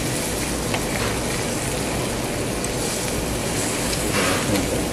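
Pork sizzling on a grill, a steady even crackle and hiss.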